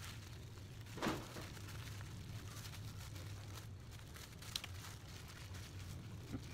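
Plastic bag crinkling and rustling as grease is squeezed by hand from the bag into a grease gun barrel to load the gun, with one louder moment about a second in. A steady low hum runs underneath.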